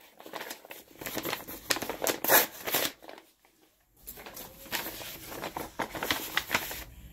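Packaging crinkling and tearing as a gift package is opened by hand, in irregular rustles with a pause of about a second roughly three seconds in.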